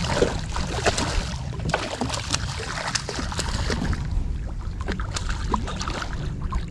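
A hooked cobia thrashing and splashing at the surface right beside a kayak. Sharp splashes and slaps of water come one after another, busiest in the first few seconds.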